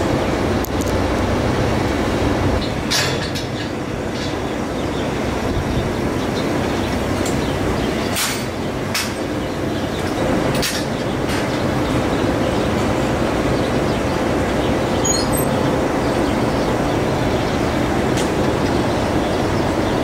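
Steady machinery rumble throughout a dairy barn, with a few sharp metallic clanks from a wheeled wire-mesh calf cart being pushed and handled.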